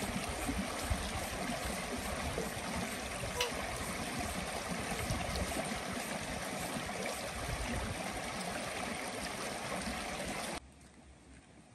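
A shallow, rocky creek running and trickling over stones in a steady rush of water, which cuts off suddenly near the end.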